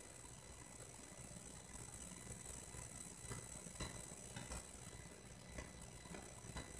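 Faint room tone: a steady hiss with a thin, constant high whine and a few scattered soft clicks.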